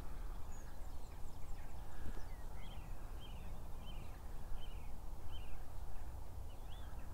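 A bird calling repeatedly: short, high chirps about every half second to second, starting about two seconds in, with fainter, higher chirps before them. A low, steady rumble runs underneath.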